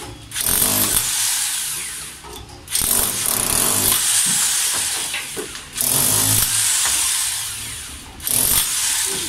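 Ingco jackhammer chiselling into concrete, running in four bursts of two to three seconds with short pauses between.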